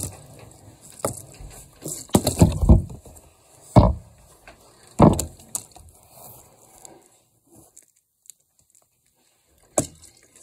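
A few knocks and thuds from a partly filled plastic water bottle being handled and set down on carpet and a hardcover book: a cluster about two seconds in, single knocks near four and five seconds, then a quiet stretch before one more knock near the end.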